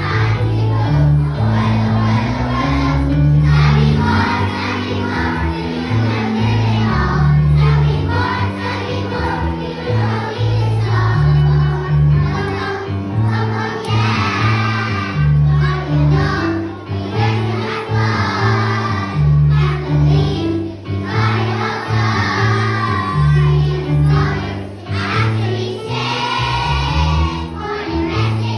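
A group of young children singing together over backing music with a strong, steady bass line.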